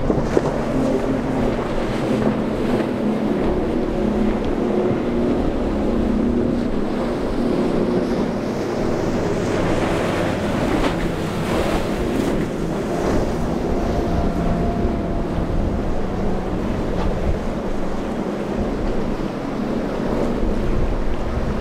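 Twin outboard engines of a cabin cruiser running at speed through rough inlet chop. There is a steady engine hum that is clearest in the first several seconds, under constant wind buffeting the microphone and the rush and splash of waves and spray, which rises for a few seconds near the middle.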